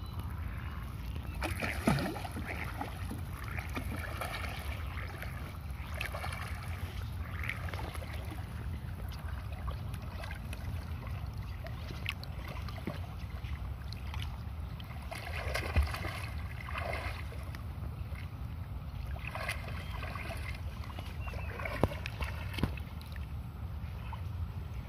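Shallow seawater lapping and sloshing around a man wading chest-deep, with a steady low wind rumble on the microphone. A few short splashes stand out, about two seconds in, in the middle and near the end.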